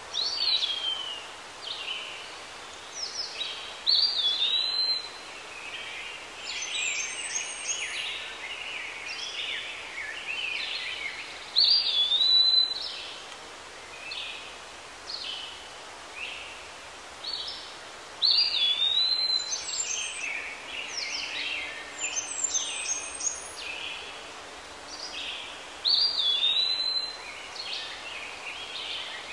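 Birds singing over a steady background hiss: quick chirps and a whistled note that dips and rises, with louder song phrases about every seven seconds.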